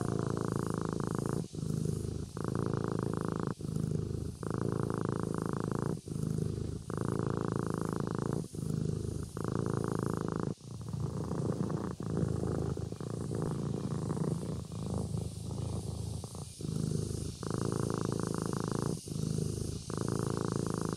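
Kitten purring, a steady rumble broken by brief dips at each breath, about one every second or so.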